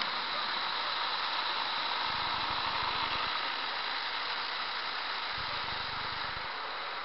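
Automatic car wash heard from inside the car: water spray and rotating brushes scrubbing over the windscreen and body, a steady hiss. A low rumble comes in twice, each time for about a second.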